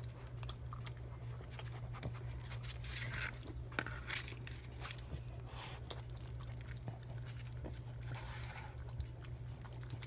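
Small dog eating from a paper plate: irregular wet licking, smacking and chewing noises with the odd click against the plate, over a steady low hum.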